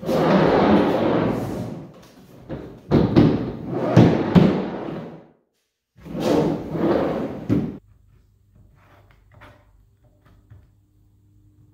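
Large plywood drawer rolling in and out of its plywood box on bearing tracks: a rumbling slide ending in knocks, three times over. Then only a few faint handling clicks.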